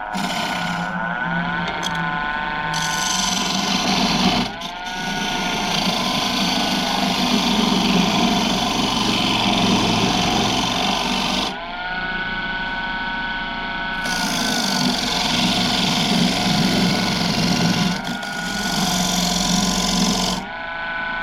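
Wood lathe turning a bowl blank while a gouge cuts into the spinning wood, giving a steady scraping hiss over the motor's whine. Several times, about four seconds in, around the middle for a few seconds, and near the end, the tool comes off the wood and only the motor whine remains, its pitch wavering.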